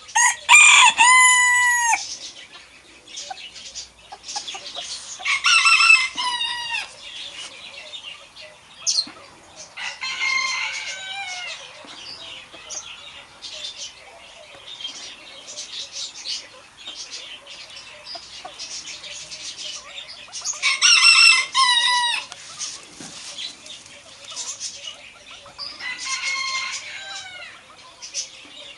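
Rooster crowing about five times, each crow a second or two long and ending on a falling note, with faint clucks and chirps between the crows.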